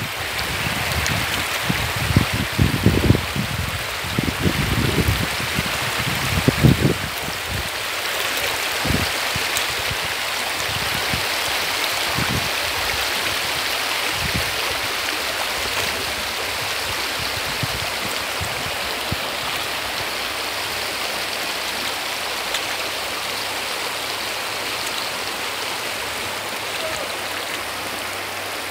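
Shallow, stony river running steadily. A run of low thumps comes in the first seven seconds or so, with a few more after.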